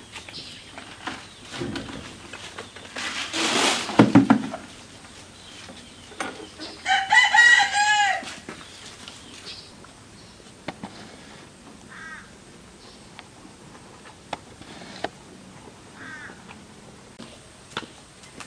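A rooster crows once, a long call about seven seconds in. Two short chicken calls follow later. A few seconds before the crow comes a loud, noisy rush of sound.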